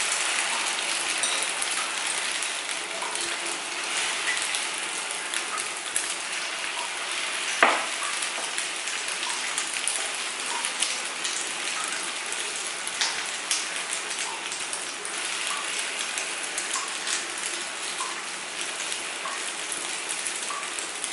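Beaten egg and onion mixture sizzling steadily in hot oil on a non-stick pan, a continuous hiss full of small crackles, with a fork scraping and tapping against the pan. One sharp clink stands out about eight seconds in.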